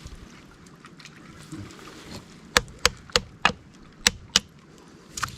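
A hard object striking rock oysters on shore rocks to knock or crack them off: about six sharp knocks in quick pairs from about halfway in, with one more near the end.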